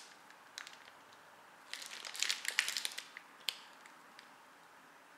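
Speed peeler shaving strips off a block of pecorino: a run of short rasping scrapes lasting about a second, with a few small clicks before and after.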